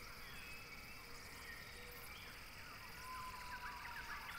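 Faint outdoor nature ambience with small chirping calls, turning into a quick run of short rising chirps over the last second or so.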